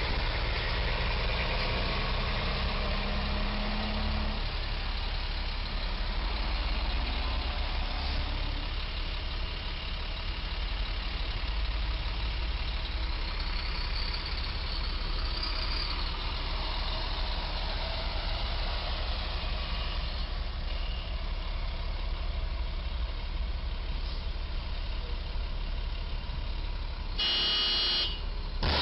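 Street traffic noise: a steady low rumble of engines idling and vehicles passing. Near the end comes one short, loud, steady tone of about a second.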